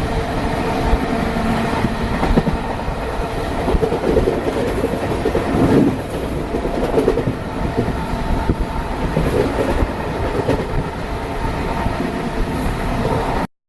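Passenger coaches of an Indian Railways superfast express running through a station at full speed, a loud continuous rumble with wheels clattering over rail joints. It cuts off abruptly just before the end.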